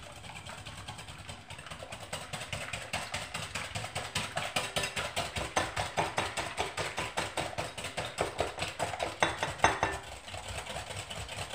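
Wire whisk beating an egg and sugar mixture by hand in a bowl: rapid rhythmic strokes of the wires against the bowl, about five a second, growing louder a few seconds in.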